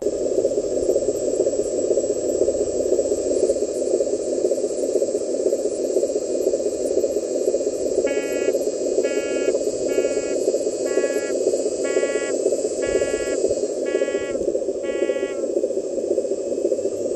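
Steady simulated diesel truck engine drone from an RC dump truck's sound system. About halfway through, a reversing beeper sounds eight times, about once a second, as the truck backs up.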